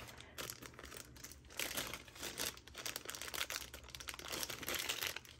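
Packaging of a set of false nail tips crinkling as it is handled, in quick, irregular crackles.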